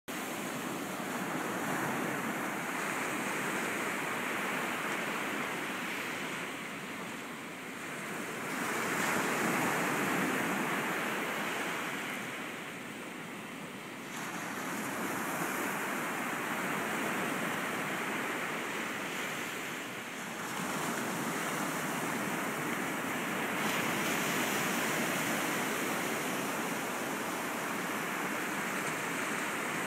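Small Gulf of Mexico waves breaking and washing up on a sandy beach, a steady rush of surf that swells and eases as each wave comes in.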